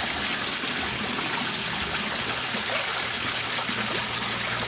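Steady rush of pump-driven water splashing into a fish pond, with a low steady hum underneath.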